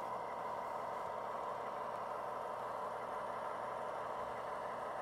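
Steady diesel engine sound from the sound system of an HO scale model FA-type diesel locomotive as it runs slowly along the track.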